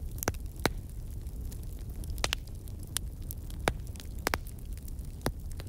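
Wood fire crackling, with sharp pops at irregular intervals over a steady low rumble.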